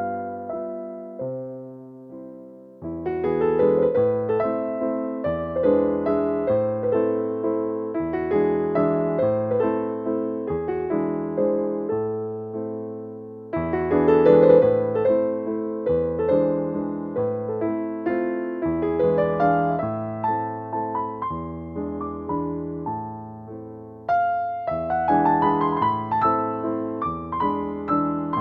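Slow piano music of sustained notes that ring and fade, in phrases that die away and start again louder about every ten seconds.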